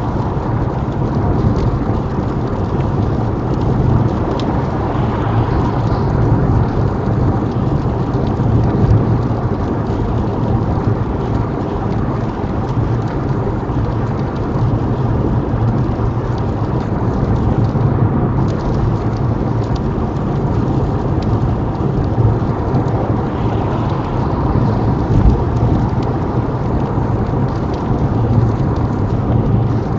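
Steady low road and tyre rumble heard from inside a small car driving on a wet motorway, with rain hitting the windscreen.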